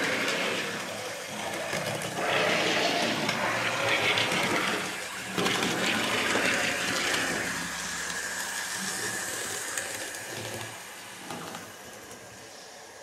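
Model Class 56xx tank locomotive running along the layout's track, its small electric motor whirring and its wheels rumbling on the rails. The sound swells and falls as it goes, fading lower near the end.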